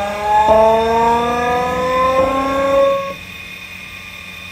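Homemade scale-model VVVF inverter (VF drive) driving a small electric motor, programmed to mimic a Keikyu 1000 series Siemens GTO train inverter: a rising multi-tone whine that jumps in pitch twice as the synchronous pulse count per output cycle is stepped down. Just after three seconds the tones cut off as the drive's output drops to zero, leaving a faint hum.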